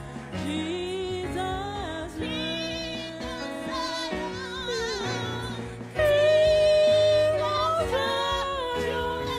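A woman singing a gospel worship song into a microphone over instrumental backing, getting louder about six seconds in on a long held note.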